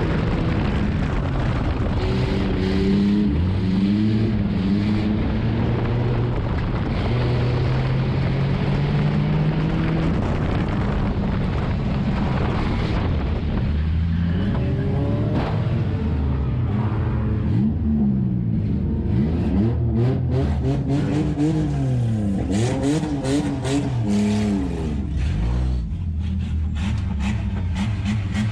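Enduro race car's Nissan engine heard from inside the cabin, its pitch rising and falling again and again as the driver gets on and off the throttle around the track. A run of knocks and rattles joins in over the second half.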